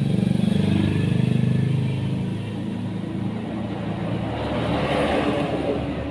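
A motor vehicle engine running, loudest in the first two seconds and swelling again about five seconds in.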